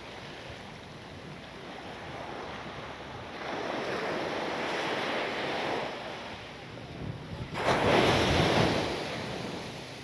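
Surf breaking on the beach: two waves wash in, the first about a third of the way through and the second, louder and starting suddenly, about three-quarters through.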